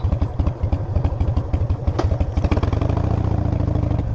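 Harley-Davidson V-twin engine running at low speed with an uneven, pulsing beat. A little under three seconds in it settles into a steadier, smoother note. There is one sharp click around two seconds in.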